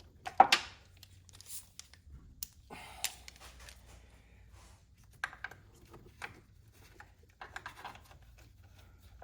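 Irregular metal clinks and knocks of a deep 14 mm spark plug socket on two wobble extensions being handled and worked down into the spark plug tube, with the sharpest click about half a second in.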